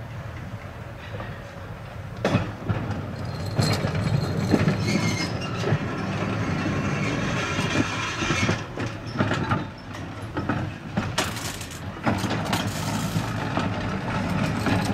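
Vintage electric tram rolling past at close range: a steady rumble with its wheels clattering and clicking over the rail joints, getting louder about two seconds in.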